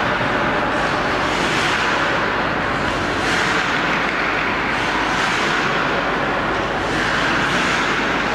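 Hockey skate blades hissing and scraping on the ice as players stride and cut through a drill, repeated scrapes over a steady background din.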